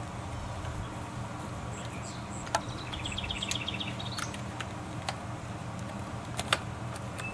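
Quiet outdoor background with a steady low hum, a few light clicks, and a short, rapid chirping trill about three seconds in. No gunshot is heard.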